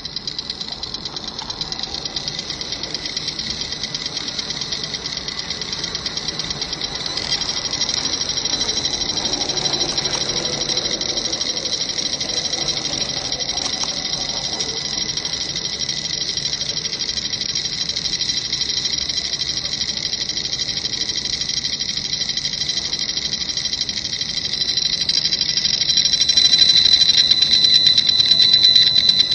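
Cornet electrosmog meter's audio indicator in RF mode, giving a steady fast buzz with a high whine as it picks up the 2.4 GHz Bluetooth radio of wireless earbuds. It grows louder about seven seconds in and again near the end, as an earbud is held close to the sensor.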